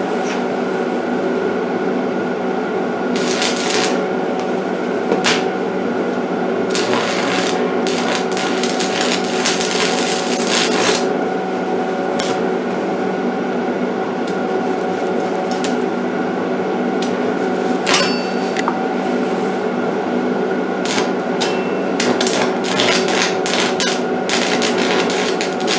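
Stick (arc) welder at a low current setting, the electrode's arc crackling and sizzling in irregular spurts as it lays a weld on thin steel, over the welder's steady hum.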